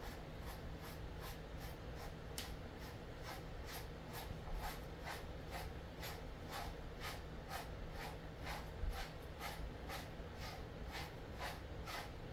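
Grooming brush drawn repeatedly through a dog's thick coat, short strokes in a steady rhythm of about three a second.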